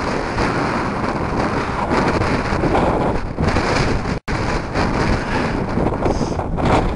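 Strong wind buffeting the microphone: a loud, unsteady rush with gusts. It cuts out completely for an instant about four seconds in.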